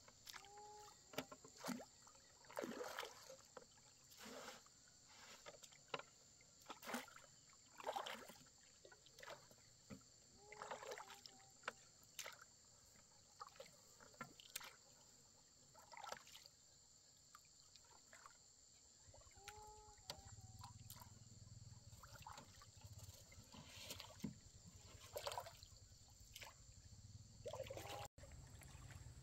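Faint, irregular small splashes and drips of water, with a few soft knocks scattered through.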